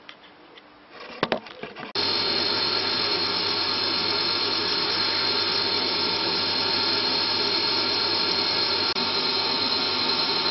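Workshop extractor fan running steadily, starting abruptly about two seconds in, after a few light knocks.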